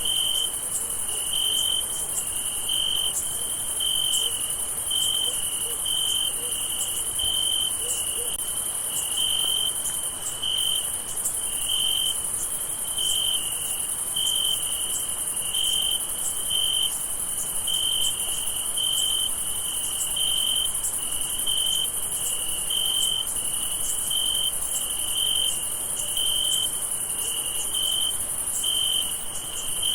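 Crickets chirping at night: one cricket's regular, evenly spaced chirps over a steady high-pitched insect trill.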